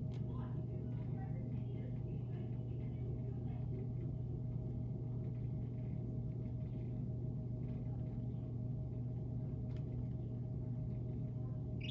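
Baby chicks peeping faintly now and then over a loud, steady low hum.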